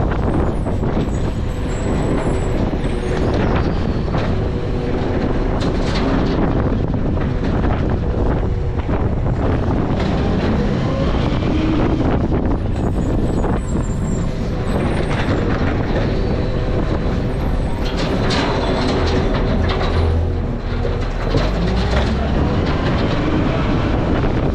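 Garbage truck running steadily, with occasional sharp clanks.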